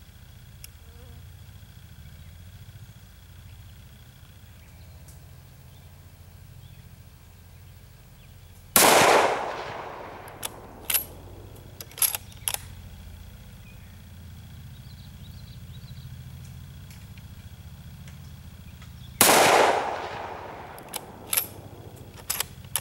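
Two rifle shots from a Ruger Model 77 bolt-action rifle in 7x57mm (7mm Mauser), about ten seconds apart, each followed by a long fading echo. A second or two after each shot comes a quick series of sharp metallic clicks as the bolt is worked to eject the spent case and chamber the next round.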